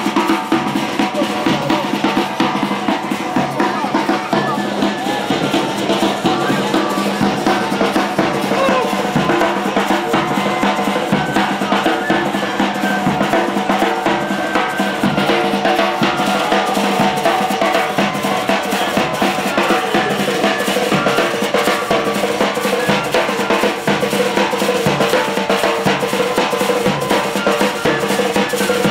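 Youth marching band playing, with snare and bass drums keeping a dense, steady beat under sustained pitched notes.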